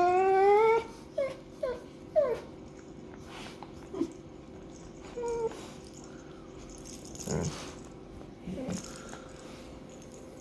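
Dog whining: a long pitched whine that rises at its end about a second in, followed by three short whimpers in quick succession and one more brief whine around five seconds. A couple of soft rustling sounds come later.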